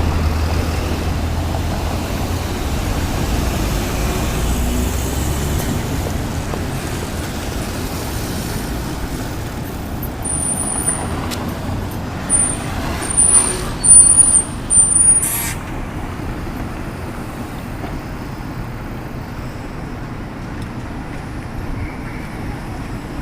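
Road traffic running through a signal-controlled intersection, with a low rumble from a passing heavy vehicle for the first five seconds or so. About ten seconds in, a high-pitched brake squeal starts, breaks off and returns several times over about five seconds, then ends in a short sharp hiss.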